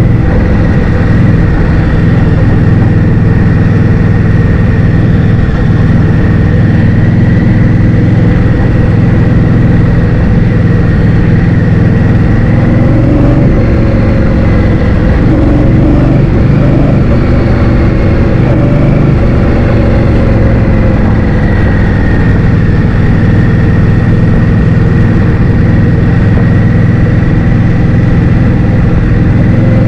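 Motor scooter running at a steady cruise, its engine hum mixed with loud, constant wind noise.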